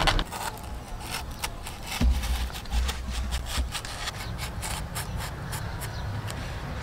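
Kitchen knife slicing into a fresh banana tree trunk, a quick run of crisp crackling cuts. A low rumble is heard from about two seconds in, lasting a second and a half.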